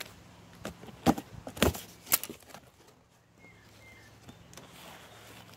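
Cardboard box flaps and packing material being pulled and handled: a run of sharp crackles and scrapes in the first two and a half seconds, then quieter rustling.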